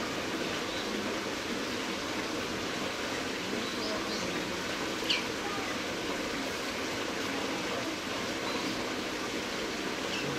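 Steady outdoor background hiss with faint distant voices and a few short high chirps; the clearest chirp comes about five seconds in.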